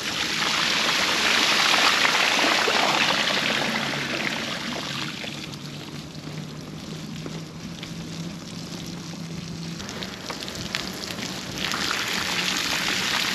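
Bicycle tyres rolling through a muddy puddle: a steady splashing swish of spray, loudest in the first few seconds, easing to a softer wet hiss in the middle, and growing louder again near the end as the wheel runs back into deeper water.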